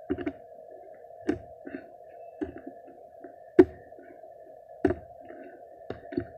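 Slime being squished and pressed by hand, giving irregular sticky pops and clicks. The loudest pop comes about three and a half seconds in, over a steady low hum.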